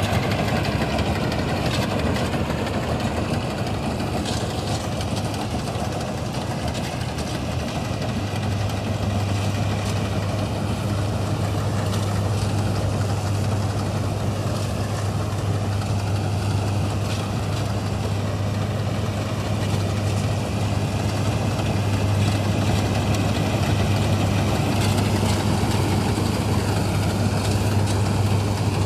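Vintage 1965 Ködel & Böhm Köla Combi combine harvester running steadily under its engine, with a constant low hum.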